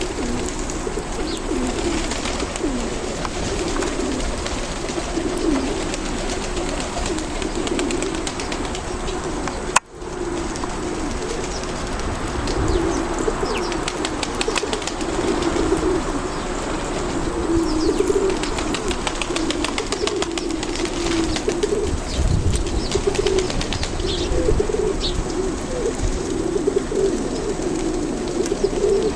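Nikolaev pigeons cooing, many birds at once in overlapping low, wavering coos that never let up; the sound drops out for an instant about ten seconds in.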